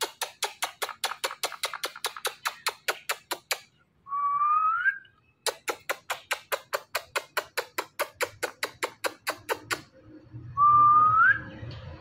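Rapid kissing clicks made with pursed lips, about eight a second, aimed at a pet Indian ringneck parakeet, broken twice by a short rising whistle.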